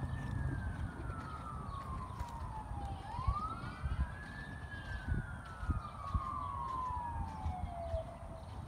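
A siren wailing, twice rising quickly in pitch and then falling slowly, with a few dull thuds of a horse's hooves on arena sand underneath.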